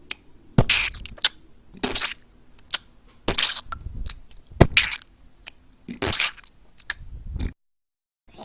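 Blood and gore sound effects played one after another: about seven separate cracking, splattering hits, each with a short spatter after it, then a moment of dead silence near the end.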